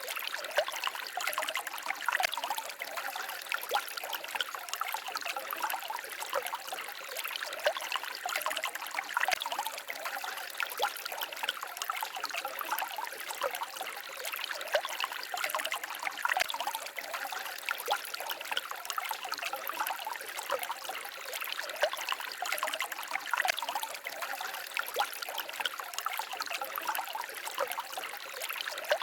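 Small forest stream babbling and trickling over stones, a steady splashy water sound with many small trickles.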